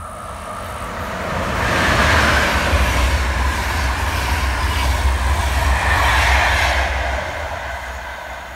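Electric-locomotive-hauled passenger train with České dráhy coaches passing at speed over a railway bridge: the rush and rumble of the wheels on the rails builds over the first two seconds, stays loud while the coaches go by, and fades away near the end.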